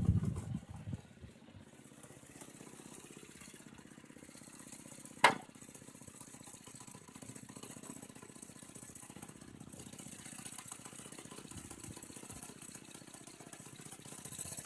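Small petrol engine running steadily with a fast, even firing beat, louder in the first second and then fainter, with one sharp click about five seconds in.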